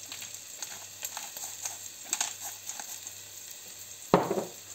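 Diced onion and garlic sizzling gently in oil in a pot over low heat, with scattered small crackles. A single knock about four seconds in.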